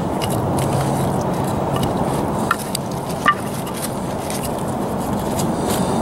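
A knife being batoned through a short round of wood to split it, with two sharp knocks about two and a half and three and a quarter seconds in, over a steady low rumble.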